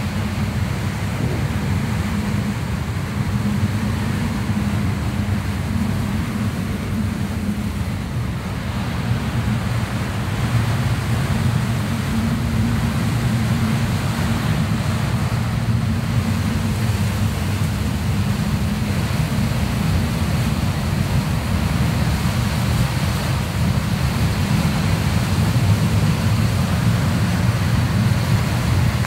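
A motor boat's engine running with a steady low drone, heard inside the wheelhouse. A rushing hiss of wind and water lies over it and grows a little louder about nine seconds in.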